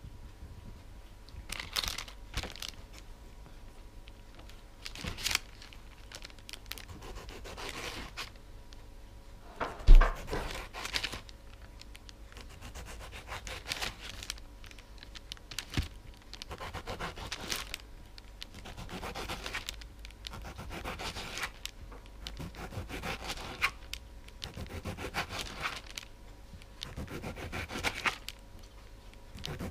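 Kitchen knife slicing a tomato on a cutting board: irregular cuts and soft knocks of the blade on the board, with some handling rustle. One loud thump about a third of the way in.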